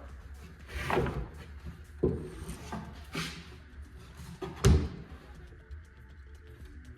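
A handful of separate wooden knocks and thumps, boards being handled and set in place, the loudest a sharp thud about two-thirds of the way through.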